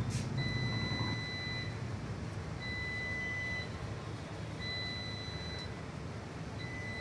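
Electronic beeper sounding a steady high beep, about a second long, repeating every two seconds over a low background hum.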